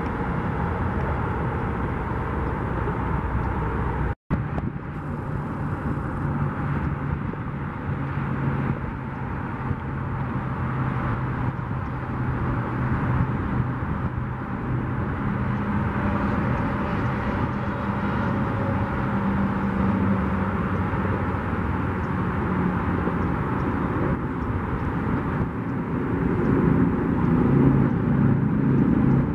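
Jet aircraft flying over at an air show, heard as a steady distant roar that swells a little near the end, with a brief break about four seconds in.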